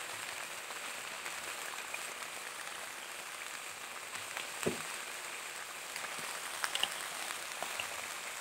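Red chili paste sizzling steadily in hot oil in a wok, a continuous rain-like hiss, with a few light ticks about halfway through and again near three-quarters of the way.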